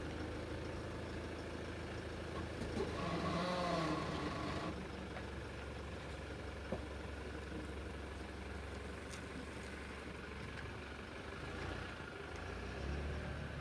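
Toyota Land Cruiser Prado 150 with a steady low drone and an unexplained moaning noise that bends up and down in pitch, heard once for about two seconds near the start. The owner has heard this noise since the vehicle was new, and the dealer has not found its cause.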